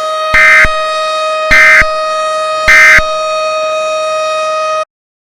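Emergency alert broadcast tones: a steady, flat siren-like drone, with three short, loud data bursts about a second apart laid over it, like an Emergency Alert System end-of-message signal. The drone then cuts off abruptly into silence.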